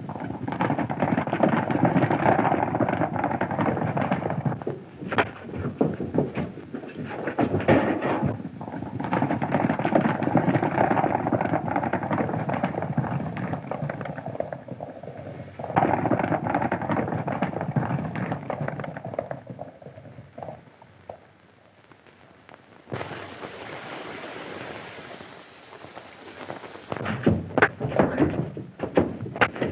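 Hoofbeats of several horses galloping over a rough trail, a dense continuous clatter that fades out about 22 s in. In the last few seconds, sharp separate thuds and knocks of a fistfight.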